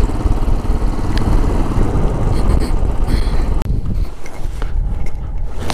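Motorcycle on the move: engine running with wind buffeting the microphone. About two-thirds of the way through the sound drops off abruptly and carries on quieter.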